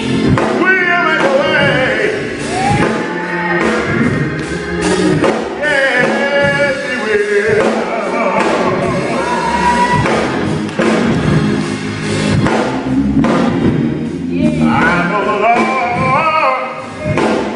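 A man singing a gospel song into a handheld microphone in long, sliding phrases, with music behind him.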